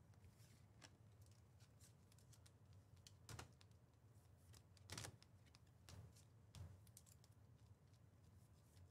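Faint clicks and soft slides of chromium trading cards being flipped one at a time from a stack in one hand to the other, with a few slightly louder flicks in the middle.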